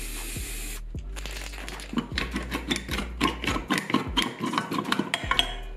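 Aerosol spray paint hissing, cut off abruptly under a second in; then, after a short pause, rapid metallic clicking and clattering as a squeeze-trigger clamp handle is worked along its ribbed rebar rod.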